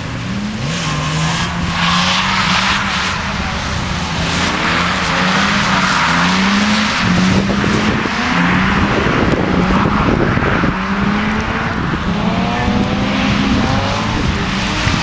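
Car drifting around cones, its tyres squealing and skidding while the engine revs rise and fall over and over as the throttle is worked. Loudest in the middle and later part.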